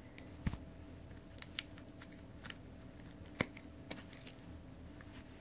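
Hands working a small plastic plug and light-string wires: about half a dozen light, scattered clicks and rattles as the LED string is unplugged from its power supply, over a faint steady hum.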